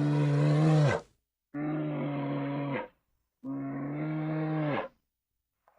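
Bear roar sound effects played one after another: a roar ending about a second in, then two separate roars of about a second and a half each, held at a steady pitch and dropping at the end. Dead silence falls between them, and another roar starts near the end.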